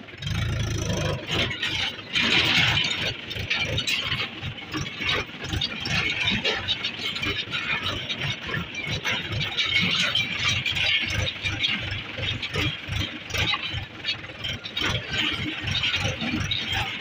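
Farm tractor's diesel engine running at idle with an even knocking beat, over the rattle of loose sheet metal; the rumble is heavier for the first second.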